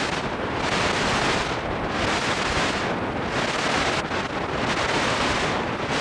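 Steady static hiss from blank videotape after the recording ends. The treble swells and fades roughly once a second.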